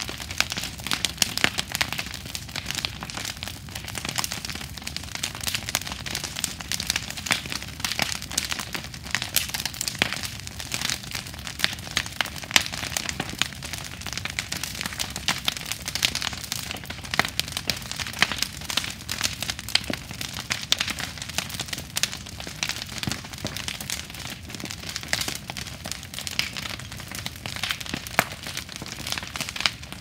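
Large wood bonfire crackling: a dense, irregular stream of sharp snaps and pops.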